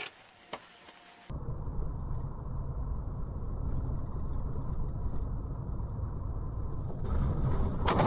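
Dashcam audio from inside a moving car: a steady low rumble of engine and road noise that swells about seven seconds in, ending in a sudden louder clatter and rush of noise as the car's ride is violently disturbed. Before the rumble starts there is a near-quiet second with two short clicks.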